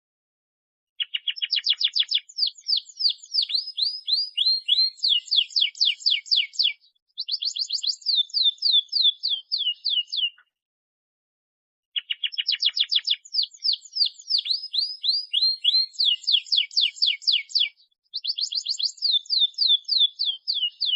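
Domestic canary singing a long, rolling song of rapid trills and repeated high notes, in two phrases of about nine seconds each with a short pause between. A strong song of the kind played to young or reluctant canaries as a tutor.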